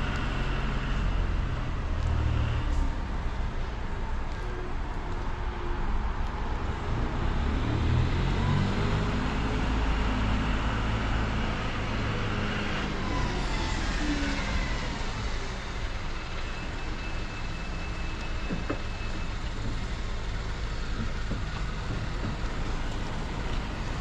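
Electric power awning motor on a travel trailer running steadily as the awning rolls back in.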